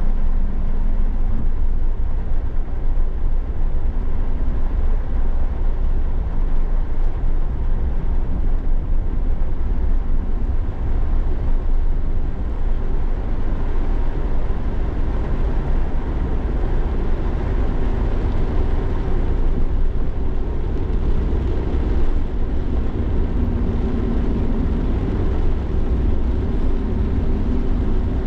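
Suzuki Every Wagon kei minivan driving in heavy rain: a steady low rumble of engine and road noise with an even hiss over it. A faint engine hum comes up and shifts in pitch from a little past halfway.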